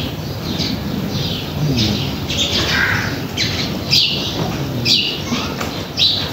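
Metal spoon stirring gram-flour batter in a plastic bowl, scraping the bowl in short strokes about once a second, with a low murmur underneath.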